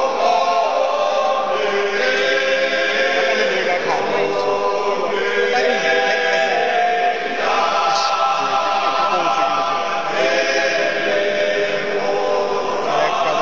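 Male choir singing unaccompanied in close harmony, holding long chords that change every two to three seconds.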